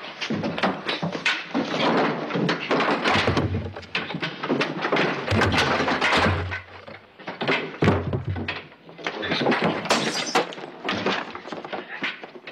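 A dense, continuous clatter of knocks and crashes, with heavy thuds about three seconds in, around six seconds and around eight seconds.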